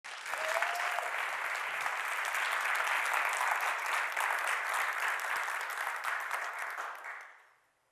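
Audience applauding: dense, steady clapping that dies away about seven seconds in.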